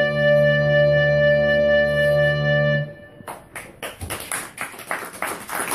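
An electronic keyboard holds a steady closing chord that stops abruptly about three seconds in, and the audience then starts applauding.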